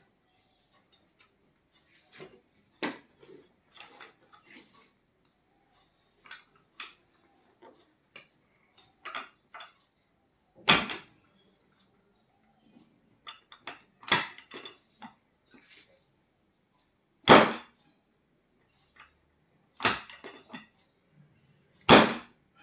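Handling sounds during a chiropractic ankle adjustment: sharp knocks, about six loud ones a few seconds apart, with quieter clicks and rustling between.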